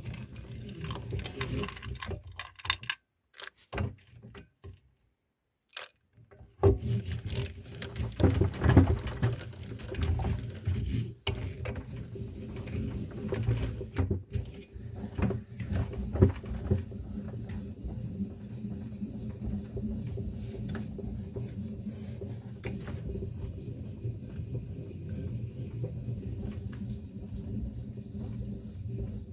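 Meat grinder running with a steady hum while grinding chocolate biscuits, with irregular crunching and clicking. The sound cuts out for a few seconds near the start, then resumes.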